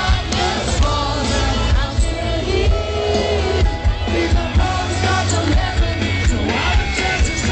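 Live rock band playing, with a voice singing over guitars and a steady drum beat.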